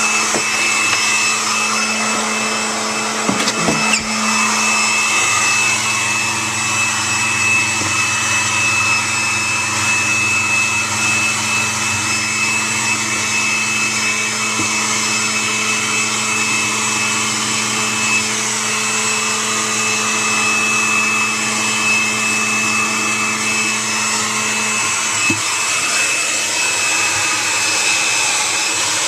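Hair dryer running steadily, a constant rushing blow with a thin high whine, set inside a refrigerator to thaw its frozen-up drain. A low hum under it drops out about 25 seconds in.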